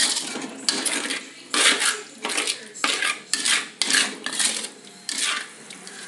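Slotted spatula scraping and knocking against a metal wok while stirring goat meat in a thick sauce: a quick series of scrapes, about two a second, that stops near the end.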